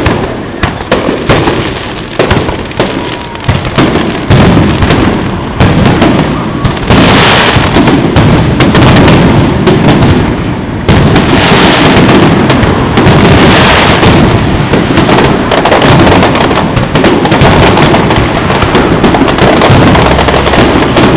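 Loud aerial firework shells bursting: separate sharp bangs at first, then after about four seconds a dense, near-continuous barrage of booms and crackling.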